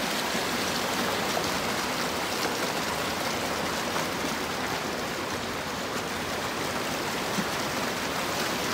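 Mountain stream flowing over rocks: a steady rush of moving water.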